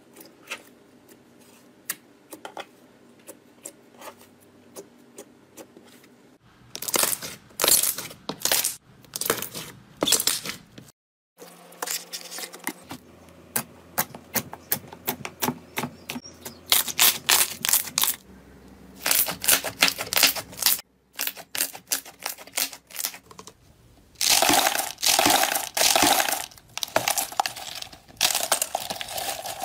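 Hands working slime: soft scattered clicks at first, then loud bursts of crackling and popping as fingers squeeze and poke the slime, broken by two short gaps. Near the end, dry crinkling as brittle pink flakes are handled in a plastic tub.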